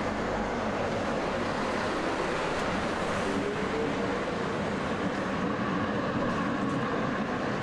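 Tram rolling past at close range: a steady rolling noise of wheels on rails, with a brief rising whine about halfway through.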